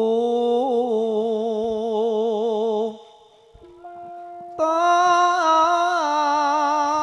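Campursari band music: long held melody notes with a wavering vibrato. The sound drops away almost to silence about three seconds in, then louder held notes come back.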